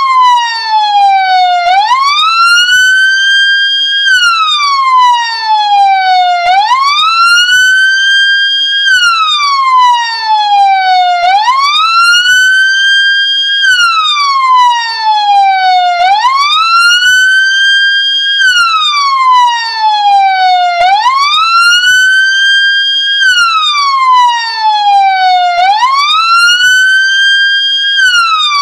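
Ambulance siren in wail mode, the electronic tone sweeping up quickly, holding briefly at the top and sliding slowly back down, repeating about every five seconds.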